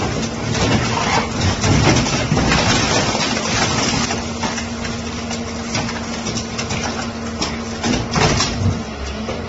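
Hyundai 500LC-5 excavator's diesel engine and hydraulic system running steadily under load as its scrap shear bites into a car body. Sheet metal crunches and tears in bursts, about 1.5–2 seconds in and again near the end.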